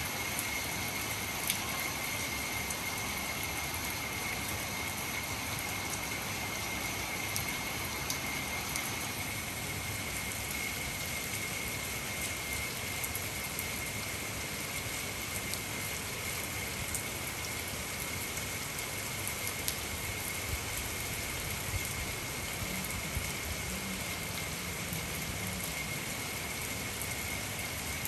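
Steady rain falling on an open tiled rooftop, an even hiss with scattered sharper ticks of single drops.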